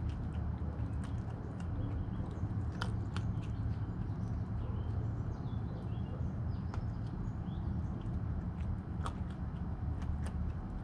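Raccoon crunching dry cat kibble right at the microphone, with irregular sharp crunches and clicks, over a steady low hum.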